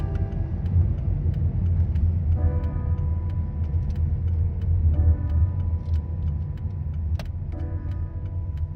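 Car driving, heard from inside the cabin: a steady low rumble of engine and tyres on wet asphalt. A few soft sustained musical chords sound over it.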